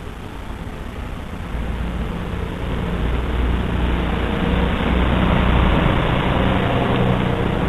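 Flame burning on the burner of a Coleman Peak 1 (442) camp stove, a steady rushing noise with a low rumble that grows louder over the first few seconds and then holds.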